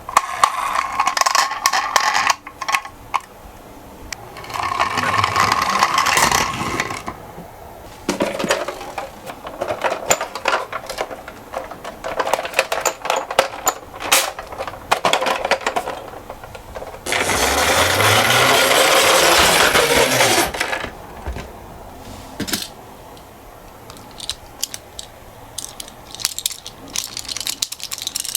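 Toy minicars rolling and clattering down a slope, with many small metallic clicks and clinks. There are two longer, louder stretches of rolling rattle, about five seconds in and again from about seventeen to twenty seconds in.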